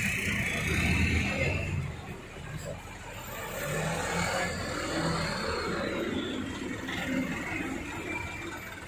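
A heavy truck's engine running as it passes close by, loudest for the first two seconds, then quieter traffic as trucks and cars creep through shallow floodwater.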